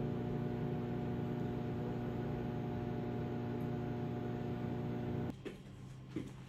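Steady electrical hum of an appliance running, which cuts off abruptly about five seconds in; after it, faint room tone with a few small clicks.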